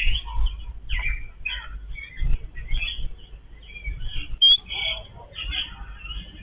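A group of yellow-billed babblers giving short, scattered chattering calls, with a sharp high note about four and a half seconds in and a few low thuds underneath.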